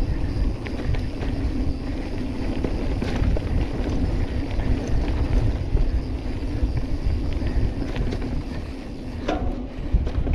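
Mountain bike riding fast down a dirt singletrack: steady tyre rumble and wind buffeting the on-bike camera microphone, with small clicks and rattles from the bike over bumps.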